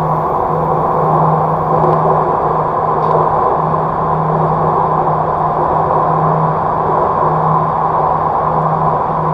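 Steady running noise of an MRT Jakarta train in motion: an even rumble with a low hum that drops out and comes back every few seconds.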